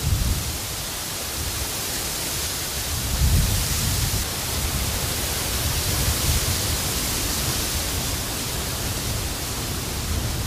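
Korean silver grass (eulalia) stalks and plumes brushing together in the wind, a steady dry rustling hiss. Gusts of wind rumble low on the microphone.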